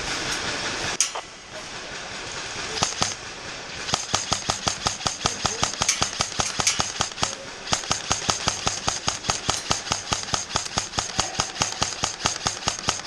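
Airsoft gun firing on semi-auto: a few single shots, then from about four seconds in a steady string of shots at about three to four a second, emptying the magazine.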